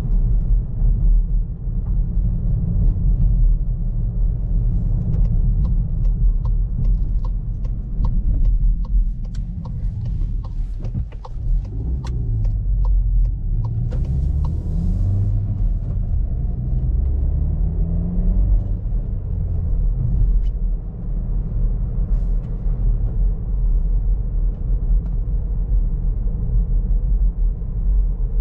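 Inside the cabin of a Skoda Karoq 1.5 TSI, a turbocharged four-cylinder petrol engine with a manual gearbox, driving at town speed with steady road rumble. The turn signal ticks about twice a second for several seconds as the car slows for a turn, and the engine then rises in pitch as it accelerates away.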